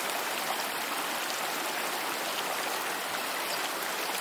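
Shallow stream running over rocks and stones, a steady rushing babble of water close to the microphone.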